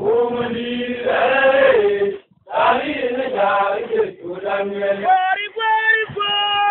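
Male chanting: sung phrases with long held notes, broken by a short pause a little over two seconds in.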